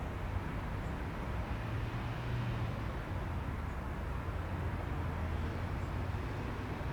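Steady low rumble with an even hiss over it: outdoor background noise, with no distinct event.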